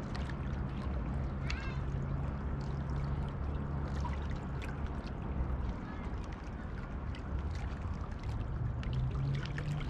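Small waves lapping and ticking against a rocky shoreline, over a low, steady motor drone such as a passing boat's engine.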